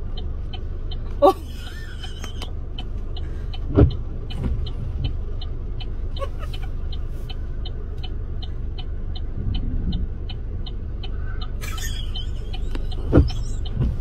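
Inside a stopped car: the engine idles as a steady low rumble while an electronic tick from the dashboard repeats about three times a second. A few knocks and swishes come over it, one swish near the end as a windshield wiper sweeps.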